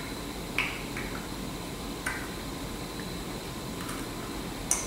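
A few short plastic clicks as molecular model kit pieces are handled and pushed together, the sharpest near the end, over faint steady room noise.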